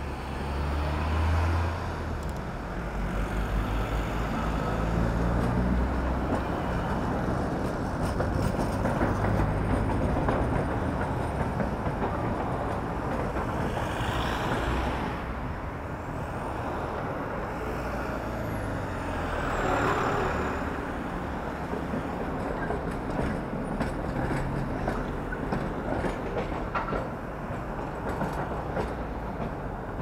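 City traffic heard from a moving bicycle: cars and trams going by, with wind buffeting the microphone in a strong headwind. The low wind rumble is heaviest at the start, and passing vehicles swell up around the middle.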